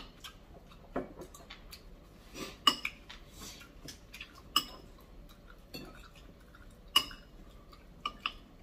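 Metal cutlery clinking against a bowl of meatball soup: several separate clinks a second or two apart, the loudest about two and a half seconds in and again about seven seconds in.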